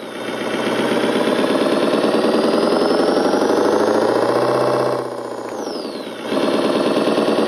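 Simulated engine sound from an ESP32 RC engine sound controller, played through two small speakers. The revs climb steadily. About five seconds in, the sound drops and falls in pitch for a virtual gear shift, then picks up again at lower revs and climbs once more.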